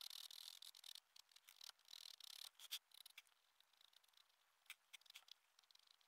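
Faint pen-on-paper scratching of quick back-and-forth hatching strokes on notebook paper, busiest in the first second and again around two and a half seconds in, then thinning to a few light strokes and ticks.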